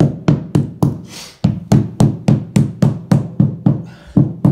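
Small hammer tapping repeatedly on a luxury vinyl floor tile, about three strikes a second, knocking a very tight tile down into fresh adhesive. The tapping breaks off briefly about a second in, then carries on.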